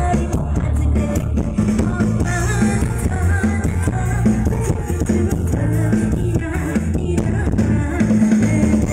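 Live mor lam band music played loud through a concert sound system, with a singer over drums and a steadily pulsing bass, picked up by a phone microphone in the crowd.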